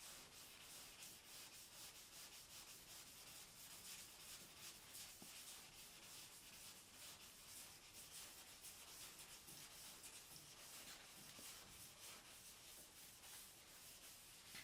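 Faint hand block sanding on the primed body of a Porsche 911: a sanding block rubbing back and forth in quick, even strokes.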